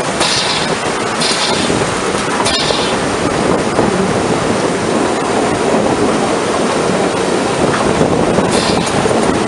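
Narrow gauge steam locomotive and train running, heard close beside the engine: a steady rumble and rattle with short hisses of steam, three in the first three seconds and another near the end.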